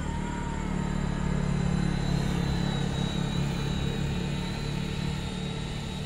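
Small quadcopter drones, a DJI Spark and a Parrot Swing, buzzing in flight: a steady propeller hum that grows louder about two seconds in and then eases off, with a thin high whine over it.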